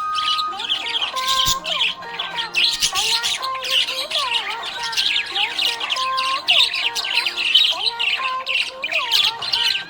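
Many small pet parrots chirping and squawking at once: a dense, continuous chatter of quick high chirps with shorter whistled glides beneath.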